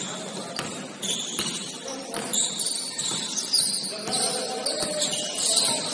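Basketball game play in a gym: a basketball bouncing on the court with several irregularly spaced thuds, under indistinct players' voices.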